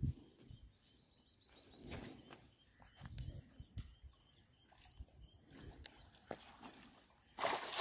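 Faint outdoor ambience around water buffaloes wallowing in a muddy pond: scattered soft clicks and low rumbles, a few faint bird chirps, then a loud rushing noise that starts near the end.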